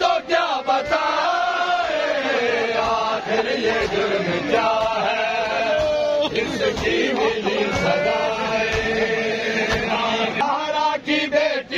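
A crowd of men chanting a noha lament together, with dull thuds of hands beating on chests (matam) beneath the chant.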